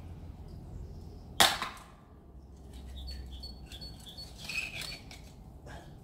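Sharp clicks and knocks: one loud one about a second and a half in, a few softer ones later, over a low wind rumble.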